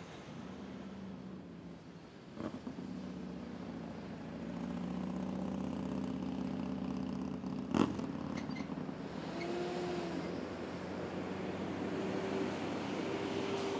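Diesel semi truck pulling double bulk tanker trailers drives away, its engine running steadily and getting louder about four and a half seconds in as it pulls off. A single sharp knock just under eight seconds in is the loudest sound, and brief higher tones sound around ten seconds and again near the end.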